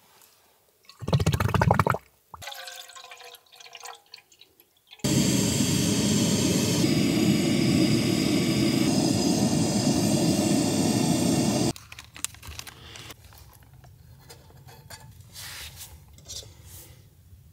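Rushing water: a brief loud splash about a second in, then a long steady rush of water that cuts off suddenly near the end.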